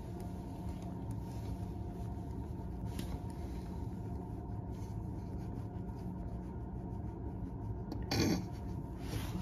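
Dry-erase marker writing on a whiteboard: faint scratchy strokes over a steady low hum. A short, louder sound comes about eight seconds in.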